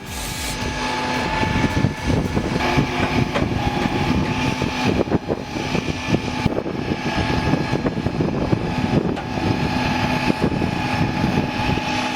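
Heavy vehicle engine running at a steady speed, a rough rumble with a steady high whine over it.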